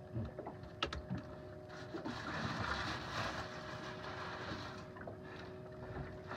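Handling noise from a tuna being pushed and shifted in a deck-hatch fish box of ice, rock salt and seawater slurry: a few sharp knocks early on, then a rustling crunch of ice slush about two seconds in. A faint steady hum runs underneath.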